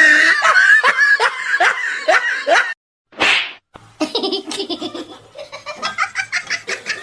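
A person laughing hard, a repeated pitched 'ha' about three times a second, cut off abruptly under three seconds in. After a short break and one brief breathy burst, a faster run of pulsing laugh-like sounds follows.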